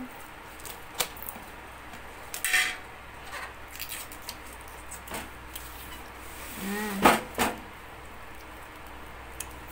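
Scattered clicks and knocks from a stainless-steel two-burner gas stove being handled and turned around, its metal body tapping about half a dozen times, the loudest knock about seven seconds in.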